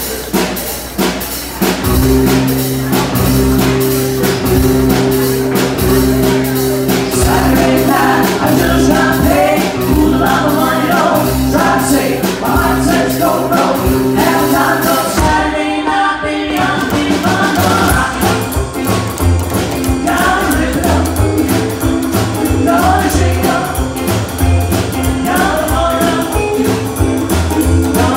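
Live rockabilly band playing, with upright bass, acoustic and electric guitars and drums, the full band coming in about two seconds in. A woman sings lead from about eight seconds in, and the band stops for a moment near the middle, then comes straight back in.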